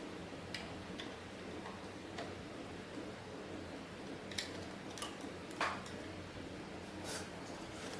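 Irregular light clicks and taps, as of small parts and tools handled while working on a key cutting machine, over a steady low hum. The loudest click comes a little past halfway.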